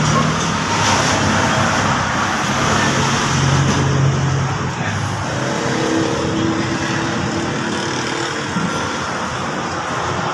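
Yamaha R15's single-cylinder engine running continuously, its pitch shifting a little as it goes.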